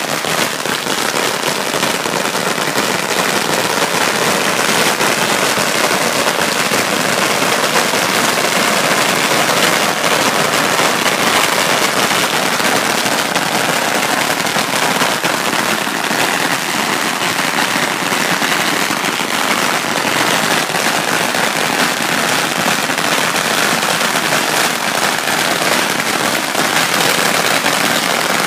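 Two long rolls of Chinese string firecrackers going off together: a dense, unbroken crackle of rapid small bangs.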